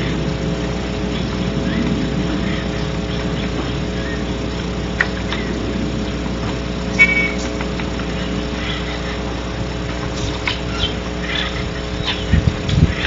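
Outdoor ambience through a barn owl nest-box microphone: a steady electrical hum under a low engine-like rumble that fades in the first few seconds. Short bird chirps come about halfway through and again later, and a few low thumps sound near the end.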